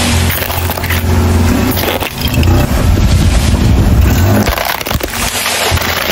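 Hard plastic toys cracking and splintering as a car tyre rolls over and crushes them, a run of sharp cracks over the low hum of the car's engine.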